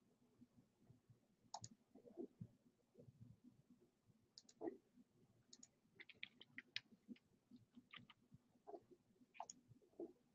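Near silence broken by faint clicks and taps of a computer mouse and keyboard, scattered through, with a quick run of taps about six to seven seconds in.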